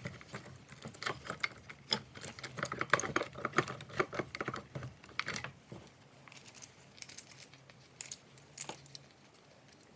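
Stihl MS 261 chainsaw chain being handled off and around its bar for turning: metal links clicking and rattling in quick runs for the first half, then a few separate clicks.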